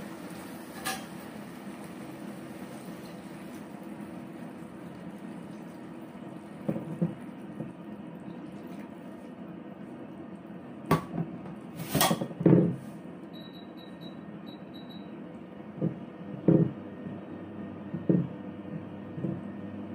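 A spatula knocks and scrapes against a nonstick frying pan as sardines in tomato sauce are stirred. The strokes come in short clusters, loudest a little past the middle, over a steady low hum and hiss.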